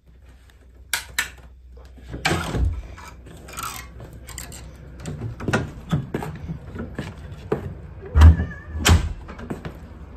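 Scattered knocks, clicks and rustles of handling and movement indoors, with two heavier thumps about eight and nine seconds in.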